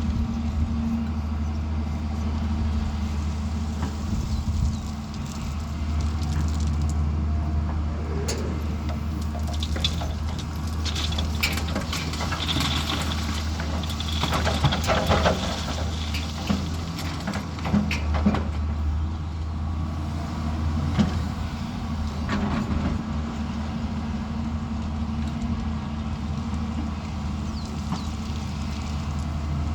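Heavy diesel earthmoving machine running steadily with a low drone. In the middle there is a stretch of clattering, knocking and scraping.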